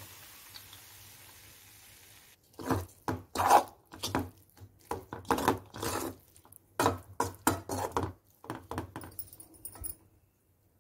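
Metal spoon stirring a thick plantain fry in a metal kadai: a run of short, irregular scrapes and knocks against the pan after a couple of seconds of faint hiss. The scraping stops abruptly near the end.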